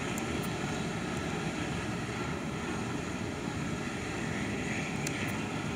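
Boeing 737-400's CFM56 turbofan engines running at taxi power as the airliner rolls past close by, a steady rushing noise with faint steady tones in it.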